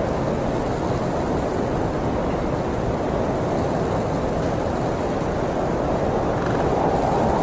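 Wind buffeting the microphone: a steady, rough rushing noise with heavy low rumble.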